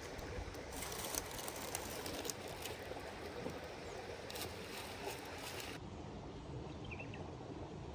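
Steady rush of a flowing stream with frequent sharp crackles and clicks from the wood fire and the pan lid being lifted off. About six seconds in the sound turns duller and a couple of faint bird chirps come in.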